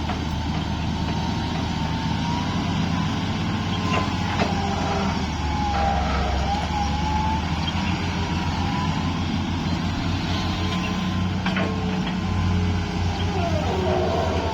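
Heavy diesel earthmoving machinery running under load, a steady low engine hum with a pulsing beat. Over it a wavering, squealing whine bends up and down, and a few sharp metallic clanks come about four and eleven seconds in.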